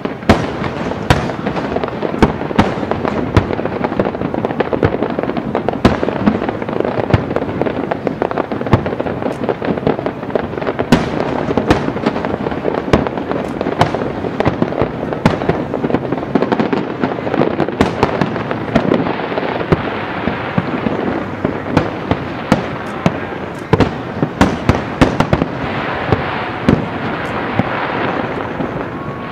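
A fireworks display in full barrage: aerial shells bursting one after another with many sharp booms over a continuous crackle, and a spell of denser crackling near the end.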